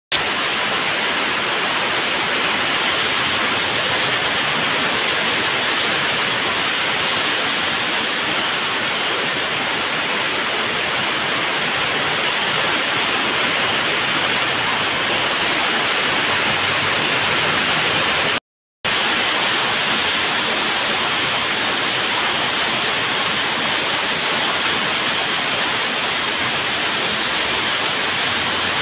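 Heavy rain falling in a steady hiss, with water pouring off a roof edge and splashing onto wet gravel. The sound cuts out for a moment about two-thirds of the way through.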